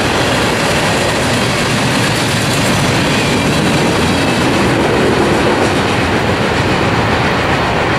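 Freight train cars rolling past at close range: a loud, steady rumble and rattle of wheels on the rails, the hiss thinning a little near the end as the last cars move off.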